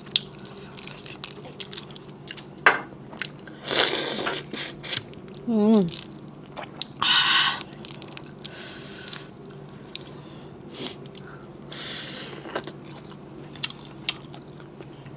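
Boiled crawfish shells cracking and being peeled apart by hand: scattered small clicks and crackles, with a few louder rushing noises about four, seven and twelve seconds in.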